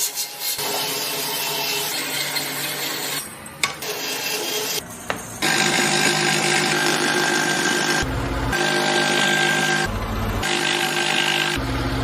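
Power tool working wood: a steady whine with a grinding, rasping noise, pausing briefly a few times.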